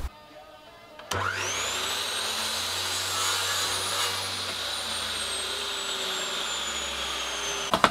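Electric mitre saw motor starting about a second in with a fast-rising whine, then running steadily as it cuts a strip of painted MDF to length, its whine slowly dropping in pitch. It cuts off abruptly near the end.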